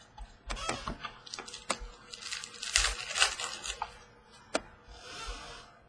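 Trading card pack wrapper crinkling and freshly pulled cards being handled: a run of crisp clicks and rustling, loudest near the middle, then one sharp click and a short soft rustle.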